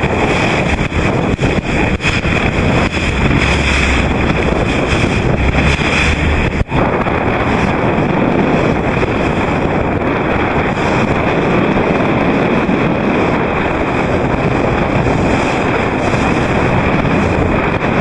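Strong wind buffeting the microphone over rushing water and waves, a loud, steady roar that briefly drops out about six and a half seconds in.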